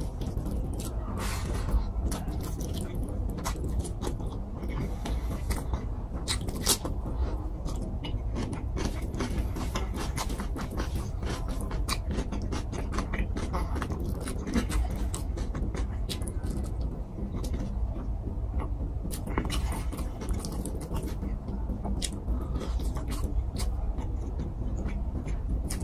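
Close-miked eating by hand: wet chewing and lip smacks on a mouthful of rice and rohu fish curry, with fingers squishing and mixing rice on the plate. There are many small clicks throughout, over a steady low hum.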